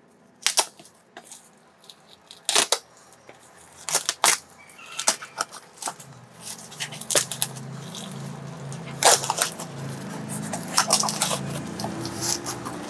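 Scissors snipping and a woven plastic sack being ripped off a taped cardboard parcel: a string of sharp, irregular snips and tearing sounds, with a low steady hum underneath from about halfway.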